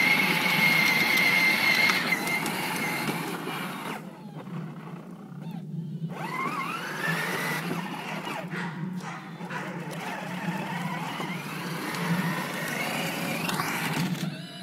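Battery-powered ride-on toy jeep, converted to remote control, driving over asphalt: its electric drive motors and gearboxes whine over the rumble of hard plastic wheels. The whine drops out about four seconds in, then comes back a couple of seconds later, rising in pitch.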